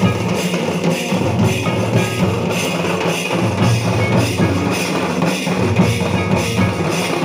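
Santal festival drums, a hand-played barrel drum (tumdak') and a stick-beaten kettle drum (tamak'), playing a continuous dance rhythm with deep low strokes.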